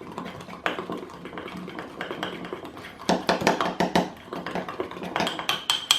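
Teaspoon stirring thick chocolate mug-cake batter in a cup, clinking and tapping against the sides in irregular runs, busiest about three seconds in and again near the end, as the batter is worked smooth to get the lumps out.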